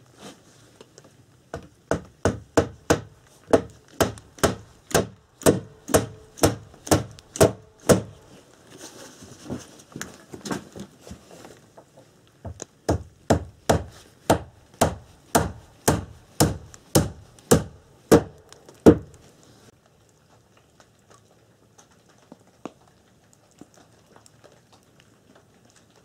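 Hammer nailing wooden boards: two runs of steady blows, about two or three a second, with a pause of a few seconds between them. The blows stop about three-quarters of the way through.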